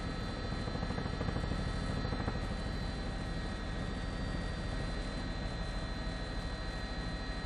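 Helicopter cabin noise picked up by the onboard microphone: a fast, steady low beat from the rotor with a steady high whine from the turbine engine.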